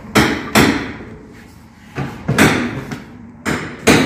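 Loud bangs in three pairs, each pair about half a second apart, the knocks of doors or panels being shut.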